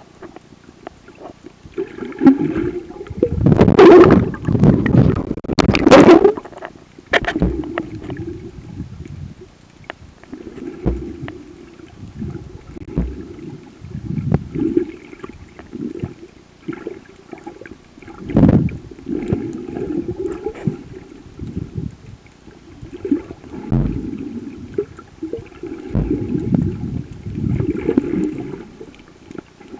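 Muffled underwater gurgling and sloshing of water around a camera filming beneath the surface. It comes in irregular surges every couple of seconds, loudest a few seconds in.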